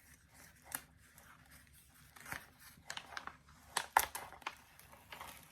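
Paper wrapping being torn open and crinkled by hand: scattered short rips and rustles, the loudest about four seconds in.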